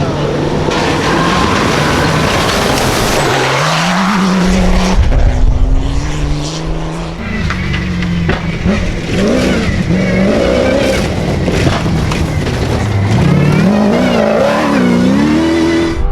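Off-road rally engine revving hard. Its pitch climbs in steps through the gears, dropping at each shift, then swings up and down near the end as the throttle is worked.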